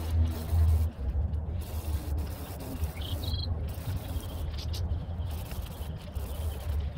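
Aerosol spray paint can hissing in bursts with short pauses between them, over a steady low hum.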